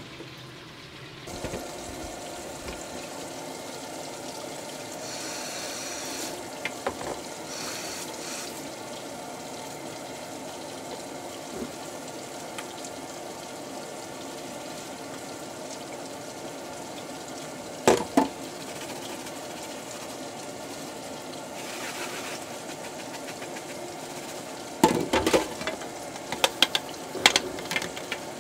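Kitchen tap running into a stainless-steel sink while dishes are washed. A sharp clink about two-thirds through, then a run of knocks and clatters near the end as a bowl and a metal tray are handled in the sink.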